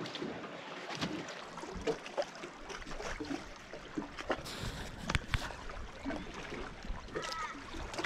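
Small waves lapping against an aluminium boat's hull, with scattered knocks and low thumps from inside the boat. A bird calls briefly near the end.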